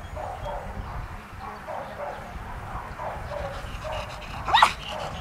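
Belgian Malinois barking repeatedly at a decoy in a bite suit, about two or three barks a second. About four and a half seconds in comes one short, loud cry that rises sharply in pitch.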